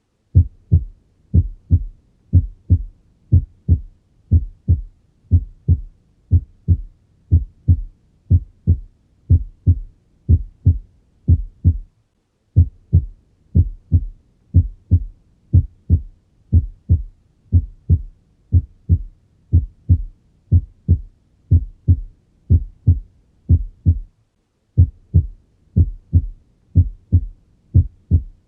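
Normal heart sounds as heard on cardiac auscultation: a steady lub-dub about once a second. The first sound (S1, the lub) is the closing of the mitral and tricuspid valves at the start of ventricular contraction. The beat breaks off briefly twice.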